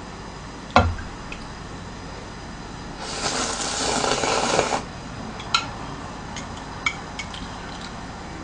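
Instant noodles and broth slurped from a small bowl for nearly two seconds, starting about three seconds in. There is a sharp knock about a second in, and light clicks of chopsticks against the bowl afterwards.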